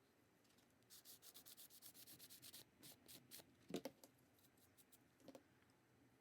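Sanding block scrubbed in quick short strokes across the edge of an epoxy resin coaster, faint and scratchy, about eight strokes a second for under two seconds, then a few slower strokes. A light knock comes about midway and a smaller one near the end.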